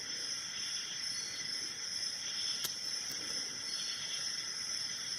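Lock picking in a six-pin Mako padlock with spool security pins: faint clicks of a hook pick lifting pins while the lock sits in a false set, with two small clicks about halfway through, over a steady hiss.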